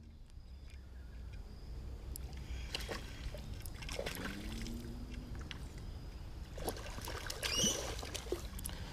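Water sloshing and dripping around a fishing kayak, with scattered knocks and clicks and a louder splash about seven and a half seconds in.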